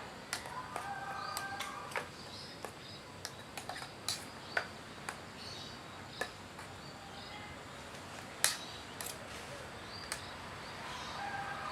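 Small birds chirping, with scattered sharp clicks and taps throughout; the loudest click comes about eight and a half seconds in.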